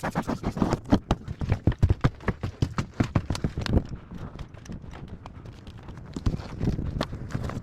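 A rapid run of sharp knocks, several a second, thinning out to scattered softer knocks about halfway through.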